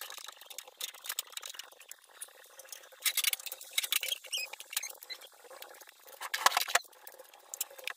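Dusting a glass-topped nightstand by hand: a cloth and a fluffy duster rubbing and squeaking over the glass, with small clicks and knocks as things on it are handled, and a louder burst of handling noise about six and a half seconds in.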